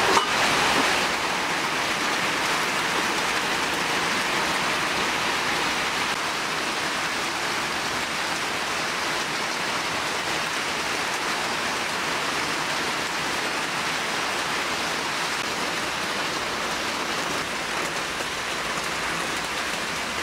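Steady rain falling on wet surfaces, an even hiss that does not let up.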